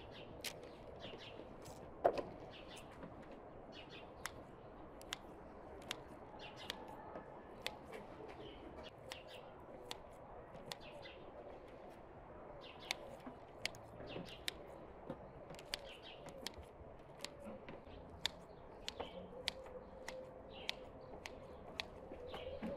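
Kitchen scissors snipping into raw bread dough, a short sharp click as the blades close about once a second, the loudest about two seconds in, with birds chirping in the background.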